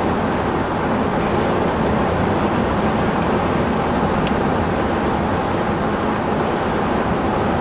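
Steady road noise of a car driving at speed, heard from inside the cabin: tyre and engine rumble with wind and no changes in pitch.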